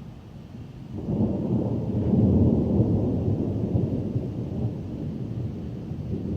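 Rolling thunder: a low rumble that comes in suddenly about a second in, is loudest a second or two later, then slowly dies away.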